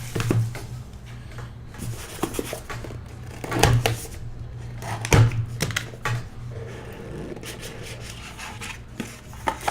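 A trading-card hobby box being opened and the cards handled: irregular rubbing and scraping of cardboard and card stock with small taps, louder about three and a half and five seconds in.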